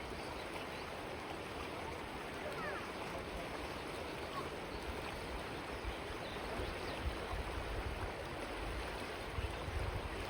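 Steady rushing of flowing river water, an even wash of noise without pauses.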